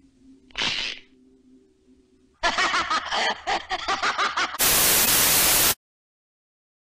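A monster deer head's cackling, laugh-like voice, rapid pulses for about two seconds, preceded by a faint low hum and a short hiss. Near the end a burst of loud TV static cuts in and stops abruptly.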